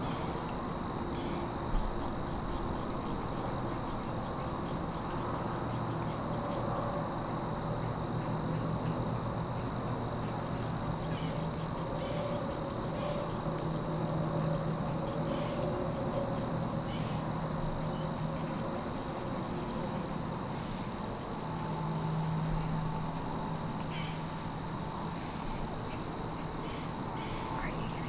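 Woodland ambience: a steady high-pitched drone, like an insect chorus, over a low distant hum that swells twice, with faint scattered ticks and rustles.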